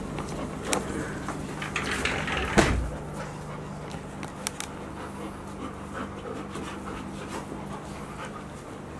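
Golden retrievers panting and moving about on a hard floor, with scattered clicks and a single thump about two and a half seconds in.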